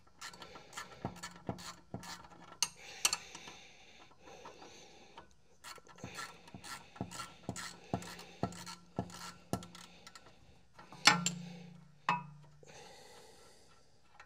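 Wrench backing out a tight brake caliper bolt on a 2014 Chevy Silverado's rear brake: a run of sharp metallic clicks with rasping between them, about two a second for a stretch in the middle, and two louder knocks about a second apart near the end.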